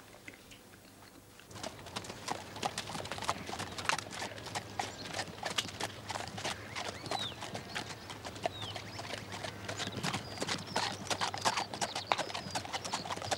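Hooves of two ridden horses clip-clopping at a walk, a dense irregular run of knocks that starts about a second and a half in.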